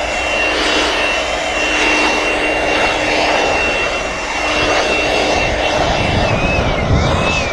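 A motor-driven machine running steadily with a rushing noise and a high whine. Its pitch dips and recovers once near the end.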